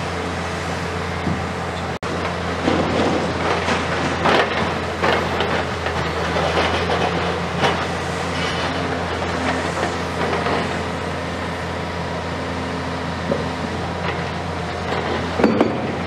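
Komatsu PC490 long-front demolition excavator's diesel engine running steadily, with irregular crunching and cracking of concrete as its tool breaks up the wall of a concrete bell tower.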